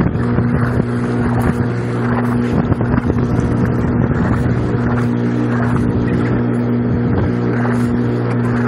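Steady drone of a sportfishing boat's engine running at a constant speed.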